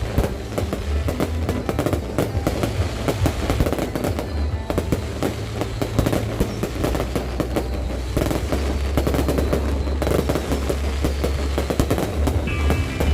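Fireworks display going off continuously: dense rapid crackling over heavy low booms.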